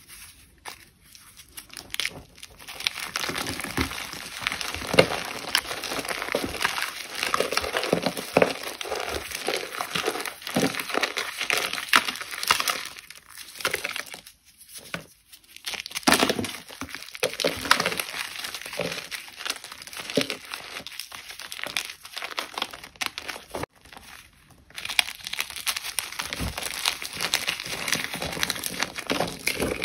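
Blocks of gym chalk being crushed: a dense run of crisp crunching and crackling, broken by a couple of brief pauses about halfway through and again a little later.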